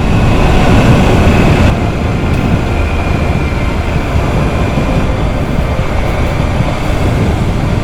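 Motorcycle riding at speed: a steady rush of wind over the microphone with the low rumble of the bike, easing a little about two seconds in.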